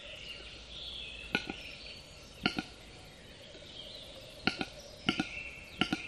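Male western capercaillie display song: a series of dry, sharp clicks, at first about a second apart and then closer together, several in pairs, speeding up towards the end.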